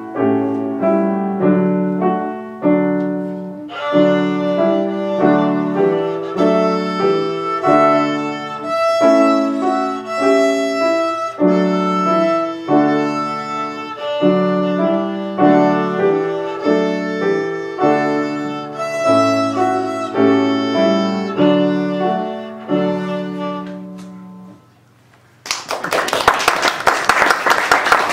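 A small child's violin solo with grand piano accompaniment: the piano plays alone for the first few seconds, then the violin joins with the melody. The piece ends about 24 seconds in, and after a brief pause applause starts.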